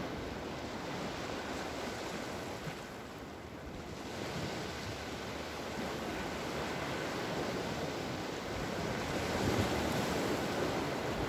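Ocean surf washing in on a sand beach: a steady rush that eases off a few seconds in and swells again near the end.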